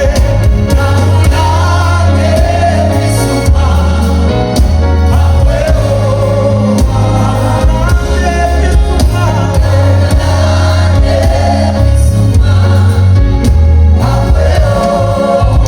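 Gospel worship music: a choir singing over a heavy, steady bass line.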